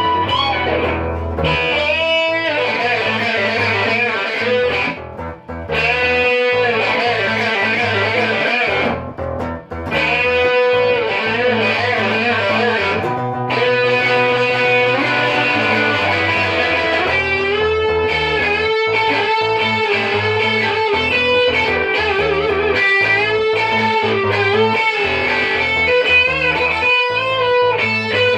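Background music led by electric guitar, with sustained and bending notes over a bass line; it drops out briefly twice.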